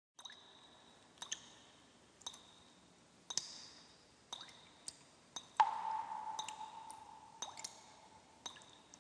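Water drips and plops, about one a second, each with a short ringing tone. The loudest comes about halfway through and rings on in one steady tone for about two seconds.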